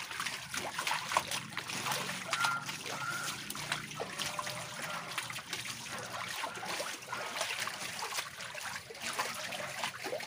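Shallow muddy water splashing and trickling in a nearly drained concrete catfish pond, with many small irregular splashes as large catfish thrash and hands work through the mud.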